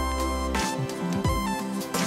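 Instrumental background music with a bass line and a steady beat.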